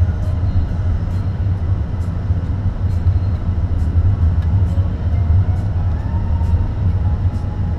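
Steady low rumble of a car's engine and tyres on the road, heard from inside the moving car's cabin, with faint, irregular light ticks.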